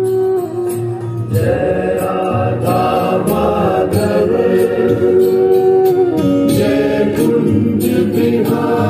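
A song with singing and a steady low accompaniment, played from a Bluetooth source through an Ahuja SSA-250DP PA amplifier and its loudspeaker at full volume. No hiss or crackle from the Bluetooth module is heard under the music.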